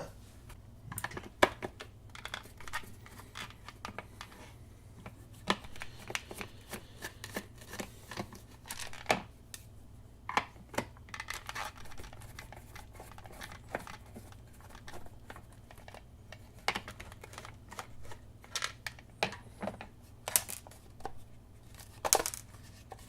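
Hands opening the plastic case of a cheap multimeter: scattered clicks, scrapes and sharp plastic cracks with pauses between them, a few of them louder.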